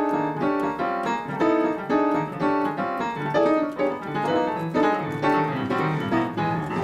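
Piano playing an atonal vamp of repeated dense, clustered chords, struck in a steady pulse; a vamp its player calls too serious.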